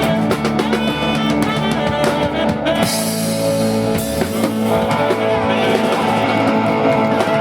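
Live band playing a rock song, with guitar and drum kit.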